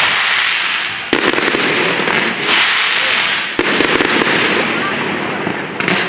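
Aerial fireworks shells bursting overhead. There are two sharp bangs, one about a second in and another about three and a half seconds in, with hissing and crackling from the bursting effects in between.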